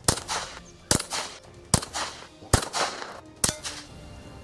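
.22 gunshots firing lead Crosman pellets driven by powder-actuated nail-gun loads instead of normal cartridges. Five sharp cracks come a little under a second apart, each trailing off in a short echo.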